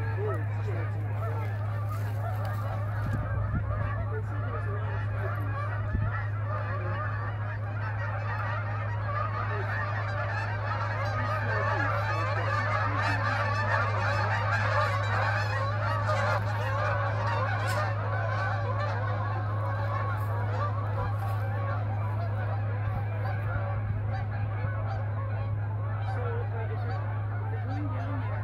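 A large flock of geese flying overhead, many birds honking at once in a dense, continuous chorus that is loudest about halfway through, over a steady low hum.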